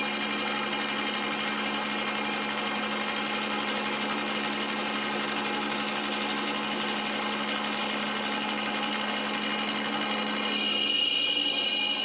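Bridgeport milling machine running with a spiral end mill cutting 6061 aluminum: a steady hum with a dense cutting whir as the part is milled to length. The sound of the cut changes about ten seconds in.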